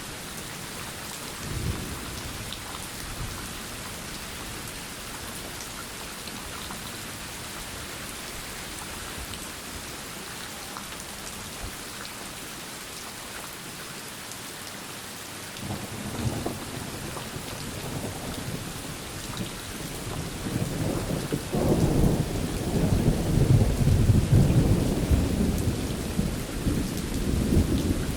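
Steady rain falling, with a long rumble of thunder building from about halfway through and growing loudest near the end.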